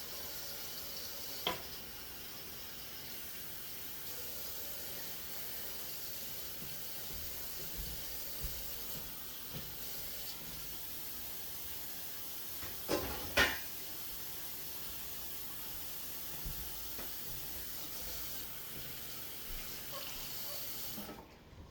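Water running steadily from a tap into a sink, letting water go down a leaking drain so it can be checked from below. A sharp knock comes about a second and a half in and two more about two-thirds of the way through, and the water is shut off abruptly just before the end.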